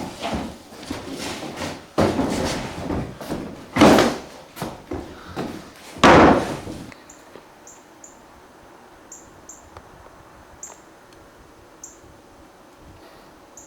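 A run of heavy thumps and bangs, like a door or wood being banged, with the two loudest about four and six seconds in. They stop about seven seconds in, leaving a low background with faint, short high chirps.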